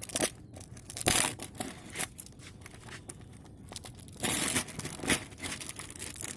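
Packaging being torn open by hand and crinkled, in a series of rips and rustles, loudest about a second in and again a little after four seconds.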